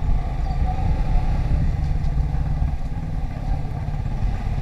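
Motorcycle engine running at low road speed, heard from the rider's seat as a steady low rumble.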